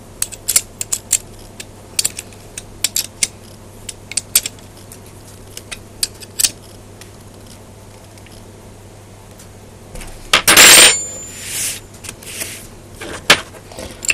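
Steel 10 mm combination spanners clinking against each other and against the bolts of the rotator casing as its nuts are done up by hand: a quick run of sharp metallic ticks, then a louder clatter about ten seconds in.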